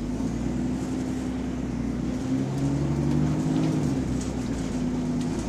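Bus diesel engine running with an exhaust leak. Its note rises about two seconds in and drops back about four seconds in.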